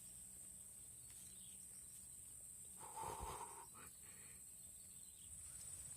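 Faint outdoor background with a steady high-pitched hiss, and one brief faint sound about three seconds in.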